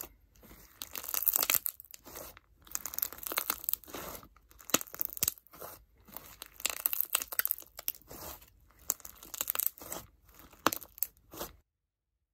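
Hands squeezing and kneading an air-puffed clear crunch slime with crunchy block bits, giving repeated bursts of crunching and crackling. The sound stops abruptly near the end.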